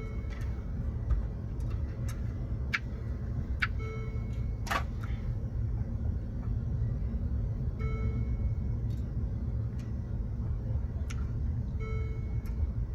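Low rumble inside a car, with an electronic chime sounding four times, about every four seconds. A few sharp clicks fall between the chimes, the loudest near the middle.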